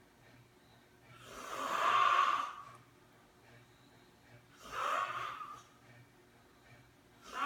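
A sleeping person snoring: three snores about three seconds apart, the first the longest and loudest, the last starting near the end.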